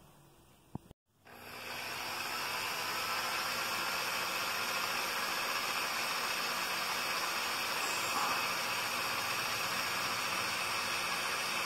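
Bridgeport milling machine drilling into a metal head housing: the spindle running and the twist drill cutting make a steady hissing noise, which starts about a second in and holds level throughout.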